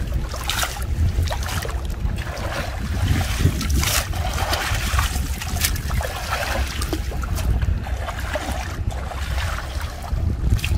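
Shallow muddy water splashing and sloshing in irregular bursts as a person wades and drags tangled plant stems through it, over a steady low rumble of wind on the microphone.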